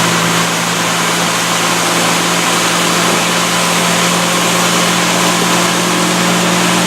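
Boat motor running steadily, a constant low hum under a strong hiss of wind and water.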